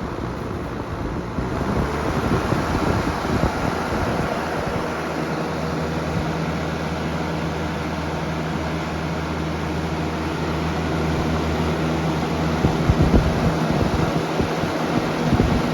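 Lakewood Box Fan 202 running on high speed: a steady rush of moving air that builds over the first couple of seconds as the blade spins up, with a low motor hum underneath. Toward the end, gusts of air buffet the microphone with low thumps.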